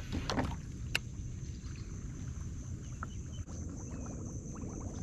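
Light clicks and knocks of gear being handled in a fishing kayak, a few sharp ones in the first seconds and smaller ticks later, over a steady low rumble.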